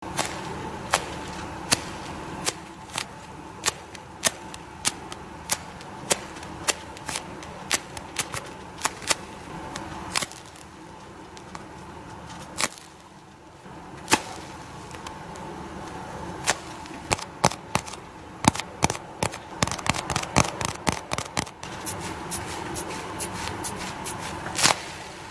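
A handmade squishy toy, a painted replica of a Puku Puku Tai monaka wafer snack, being squeezed close to the microphone: an irregular run of sharp crackling clicks over a faint steady hum.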